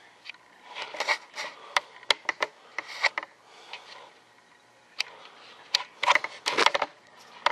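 Scattered light clicks, taps and rubbing of handling noise, busiest near the start and again near the end, with no steady machine sound.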